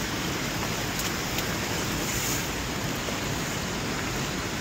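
Steady rushing of running water, with a few faint light clicks.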